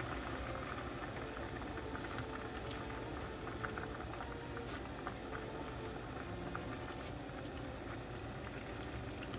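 Pot of ramen water or broth at a rolling boil, a steady bubbling hiss with many small irregular pops.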